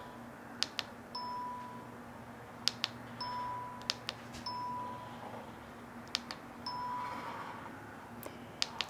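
Handi Quilter ProStitcher beeping to confirm each point marked with the longarm's handlebar button: four short single-pitch beeps, each about half a second after a sharp click, over a faint low machine hum.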